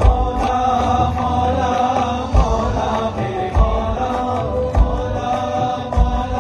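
Live stage music: male voices singing a wavering, chant-like melody over a band, with a deep drum beat about every second and a bit.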